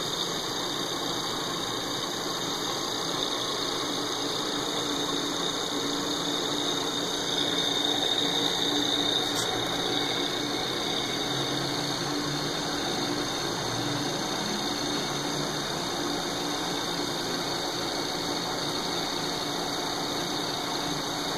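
Bridgeport slotting attachment running, its ram driving a square tool up and down as it cuts the radiused inside corner of an aluminum plate's pocket square. A steady mechanical running sound with a high whine, briefly a little louder about eight seconds in.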